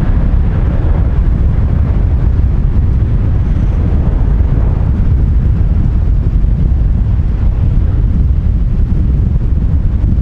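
Loud, steady low rumble of a jet airliner's engines, with some of the higher roar dying away in the first second or so.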